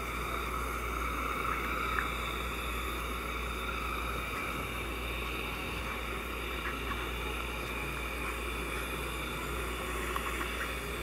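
A steady hiss with a low hum beneath it and a few faint ticks: the running background noise of a dental operatory during hand filing.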